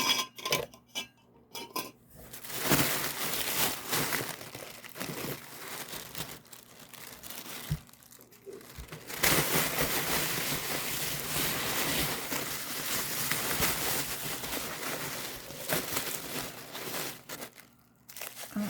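Packaging wrap being handled and pulled apart by hand, crinkling and tearing in long stretches, with a short pause about halfway through.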